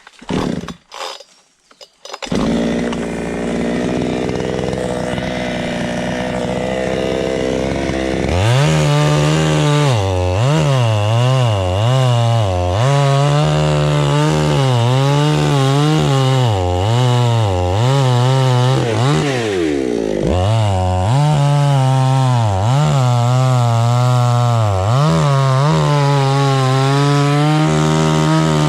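Two-stroke chainsaw running at low speed from about two seconds in, then from about eight seconds revved hard, its engine pitch rising and falling again and again as it cuts through a coconut palm trunk. The engine dips briefly about two-thirds of the way through, then picks up again.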